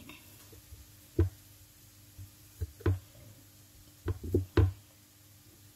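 Kitchen knife chopping a block of corned beef into small cubes on a wooden chopping board: about seven separate, unevenly spaced knocks of the blade on the board.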